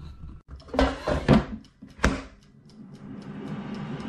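Air fryer basket pushed into the unit, clattering and knocking, then clicking home with a sharp click about two seconds in. About three seconds in, the Tower air fryer's fan starts running steadily while its mechanical timer ticks about three times a second.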